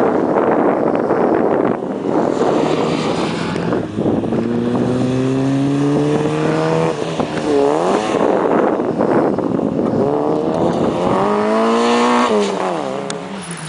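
Rally cars at full throttle. The first car passes, then a Peugeot 106 rally car accelerates hard, its engine note climbing steadily. The note dips briefly about seven to eight seconds in, as at a gear change, then climbs again until the driver lifts off about twelve seconds in.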